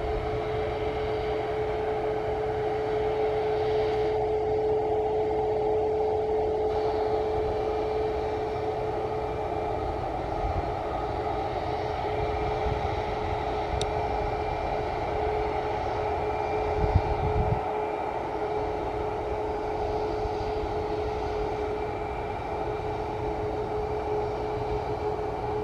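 Boeing 737 MAX's CFM LEAP-1B jet engines at taxi idle: a steady hum with one strong held tone over a low rumble. A brief low bump comes about seventeen seconds in.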